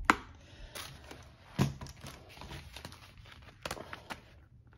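Ring binders and their plastic wrapping being handled on a desk: faint rustling with a sharp click right at the start, a knock about a second and a half in, and two more clicks near the end.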